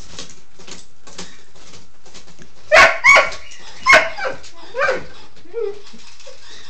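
Doberman puppy giving short, high-pitched play barks at a robot dog toy: two close together nearly three seconds in and a third about a second later, then a few softer yips and a low whine.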